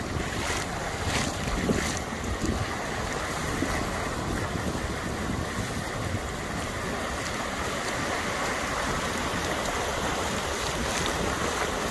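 Surf washing in the shallows with wind buffeting the phone's microphone, a steady rushing noise, with a few brief knocks in the first couple of seconds.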